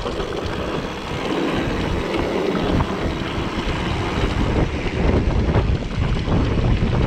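Strong wind buffeting the microphone of a camera on a moving mountain bike, a rough rumble that grows busier and gustier from about halfway through.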